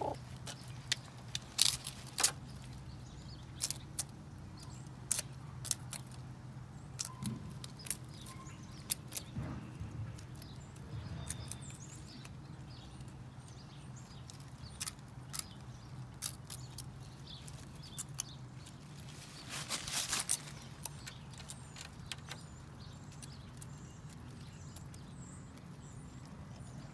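A chicken pecking at dirt and at a foil pan: a scattering of sharp, irregular clicks, with a brief scratchy rustle about two-thirds of the way through, over a steady low hum.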